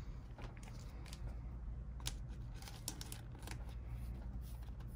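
Faint handling of trading cards: scattered light clicks and scrapes as cards are moved and set down, over a steady low hum.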